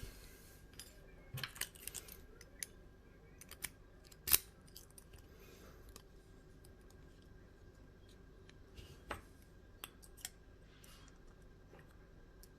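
Scattered small metallic clicks and taps as a picked challenge lock is taken apart by hand to get at its core, with one sharper click about four seconds in.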